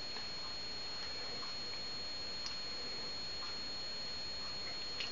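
Room tone: a steady hiss with a thin, high, steady whine, and one faint tick about halfway through.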